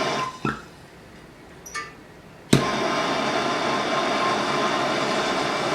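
MAPP gas torch burning with a steady hiss. The flame stops about a third of a second in and is relit with a sharp click about two and a half seconds in, then burns steadily again.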